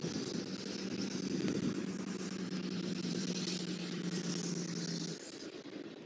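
Road traffic: a passing vehicle's steady engine drone with tyre hiss, sinking slightly in pitch and cutting off about five seconds in.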